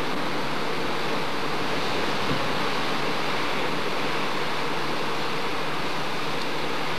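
Steady rushing ambience of ocean surf and wind, even and unbroken throughout.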